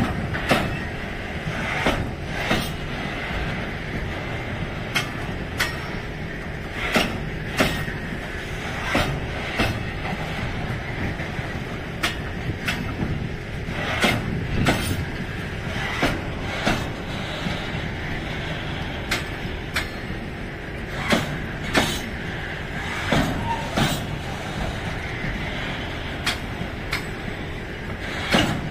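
Loaded container flat wagons of a freight train rolling past over a level crossing: a steady rumble of the wagons with sharp, irregularly spaced knocks from the wheels, roughly one every second.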